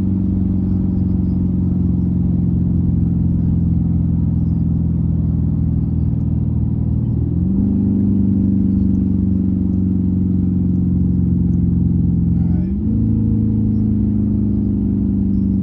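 A road vehicle's engine running steadily while driving. Its pitch drifts slowly down, then steps up quickly about halfway through and again near the end, as the revs change.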